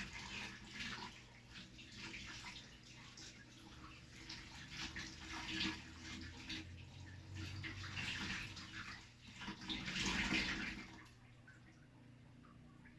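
Water splashing and sloshing as fresh coriander (dania) is washed by hand, in uneven surges that stop about 11 seconds in.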